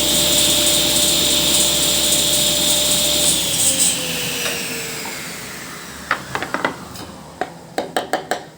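Table saw running, then switched off about three seconds in: the motor and blade whine slides down in pitch and fades as the blade spins down. A few light knocks follow near the end.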